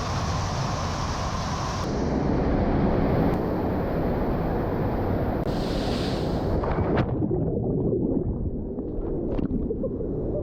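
Waterfall: a loud, steady rush of falling water. The high hiss drops away about seven seconds in, leaving the heavy low rush.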